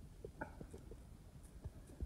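Faint soft taps and scuffs from a hen pecking at the dirt, with one short pitched chirp-like call about half a second in.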